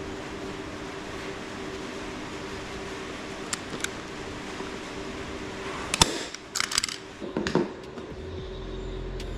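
Workshop handling noises over a steady low hum: two light clicks, then a burst of sharp knocks and clatter about six seconds in. Low background music starts near the end.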